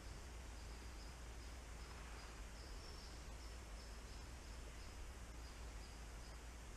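Faint rainforest ambience: a calling insect gives a high chirp repeating about twice a second over a steady hiss and a low hum. No knocks are heard.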